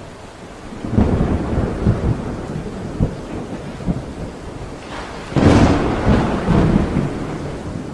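Thunder rumbling over steady rain: one long roll starts about a second in and a second, louder one comes past the middle, each fading away slowly.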